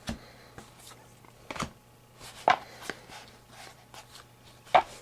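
Football trading cards being handled and set down on a table, giving a few separate sharp taps, the loudest near the end.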